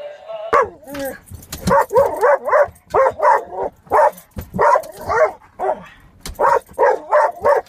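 Dog barking rapidly inside a car, about three barks a second.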